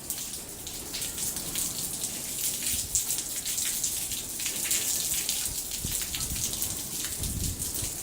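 Heavy rain falling, a steady hiss with many single drops striking close by.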